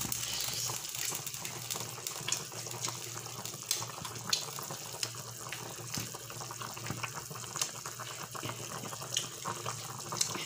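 Chicken soup boiling hard in a large metal kadai: a steady bubbling, broken by many small irregular pops.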